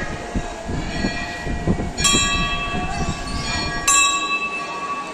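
Temple bells struck twice, about two and four seconds in, each ringing on with a bright metallic tone and fading, over a low background rumble.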